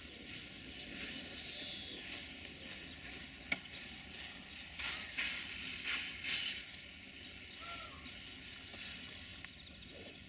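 Faint railway station ambience: a low rumble, with a sharp click about three and a half seconds in, a few short rasping noises between about five and six and a half seconds, and a brief chirp near eight seconds.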